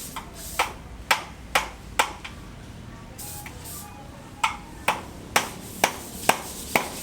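Hammer blows striking with a short ring, about two a second: four in the first two seconds, a pause of about two seconds, then six more evenly spaced.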